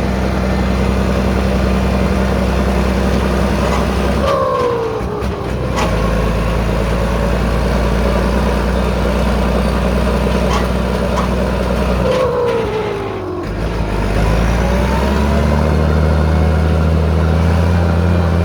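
Massey Ferguson 296 tractor's diesel engine rumbling through a 4-inch exhaust, running steadily. Twice, about four and twelve seconds in, it eases off briefly with a falling note before picking back up, and it runs a little faster from about fifteen seconds in.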